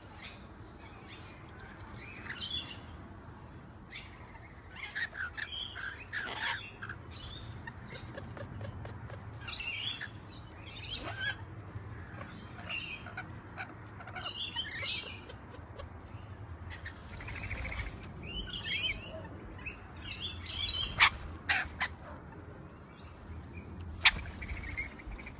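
Rainbow lorikeets chattering in short, repeated chirps and squeaky calls, with a few sharp clicks near the end.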